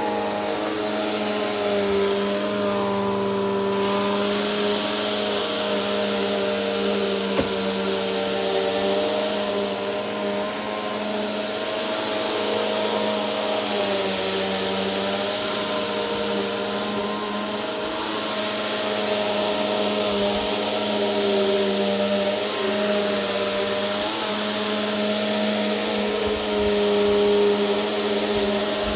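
Bissell PowerForce Helix upright bagless vacuum cleaner running steadily while vacuuming rugs, with a steady high whine over the motor and slight shifts in pitch. A brief click about seven seconds in.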